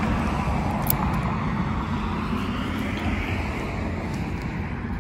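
Road traffic: a vehicle passing along the street, its steady rushing noise slowly fading away.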